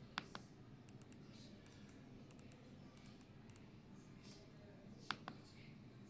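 Two sharp double clicks from an AULA F98 Pro mechanical keyboard being operated, one just after the start and one about five seconds in, with faint ticks in between.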